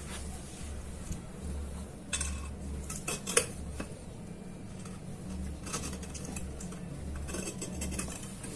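A steel scriber scratching marking lines onto hollow steel tubes, in several short scraping strokes with light metallic clinks and one sharper click about three and a half seconds in.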